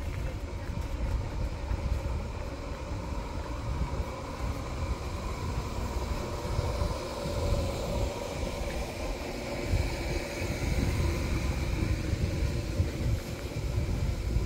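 Low, steady rumble of passing vehicles, with a humming whine that swells about halfway through and then eases off.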